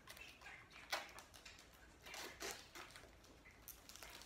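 Faint handling sounds of a small cardboard toy box being opened by hand: a few soft clicks and rustles, one about a second in and a few more around the middle.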